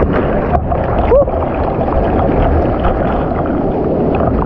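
Breaking surf churning and sloshing around a camera held at water level, with waves washing and splashing over it in a steady loud rush. The waves are big.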